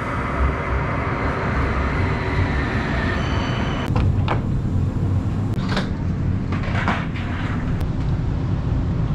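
Electric tram standing at a stop with a steady low rumble. About three seconds in, a short multi-tone chime sounds as the door-open button is pressed. The sliding passenger doors then open with a few clicks and knocks as the rider steps aboard.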